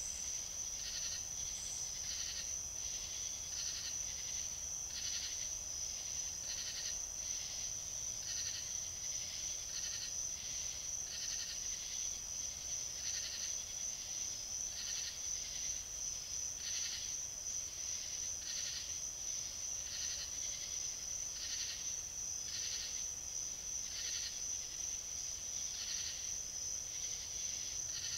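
Night insect chorus: a steady high-pitched trill, with a harsher short call repeating about once a second over it.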